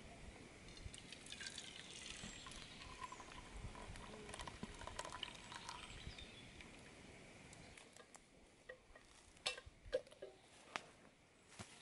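Dark liquid poured from a metal cup into an aluminium mess tin: a soft splashing trickle with a faint ringing tone from the thin metal as the tin fills. Near the end come a few light metallic clicks.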